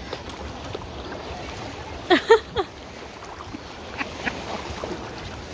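Shallow lake water lapping and stirring around a person sitting in it. About two seconds in come three short, quick calls in a row, and a couple of fainter short calls follow about four seconds in.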